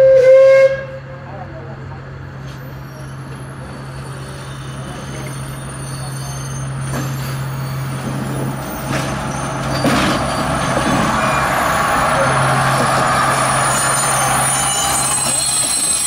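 Red Hen 300-class diesel railcar giving one short horn blast, then running toward and past with a steady low drone from its two six-cylinder diesel engines, the engine and wheel noise growing louder as it draws close.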